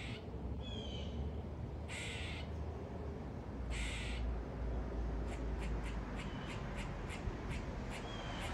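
Gray squirrel barking: harsh, raspy "quaa" calls about two seconds apart in the first half, then a rapid run of short "muk-muk" chucks at about five a second, the squirrel's agitated alarm calling.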